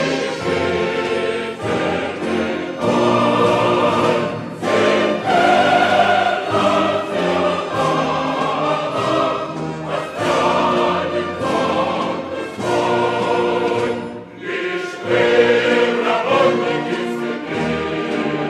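A choir singing with an orchestra, in long held phrases with brief breaks between them.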